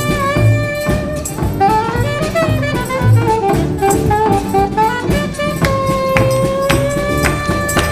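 Instrumental music: a melody line moving over a steady beat, with a long held note starting a little before the end.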